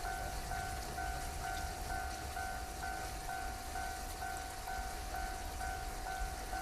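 Japanese level crossing's electronic warning bell ringing, an even two-note ding repeating about twice a second, over a faint steady hiss and low rumble.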